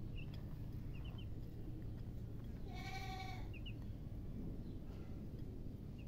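Baby chicks peeping in short, high chirps, a few times, over a steady low background rumble. About three seconds in, one louder animal call holds a steady pitch for under a second.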